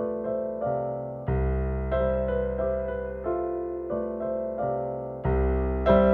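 Solo piano ballet-class accompaniment for a rond de jambe à terre exercise: an unhurried tune of struck, ringing notes, with a deep bass chord landing twice.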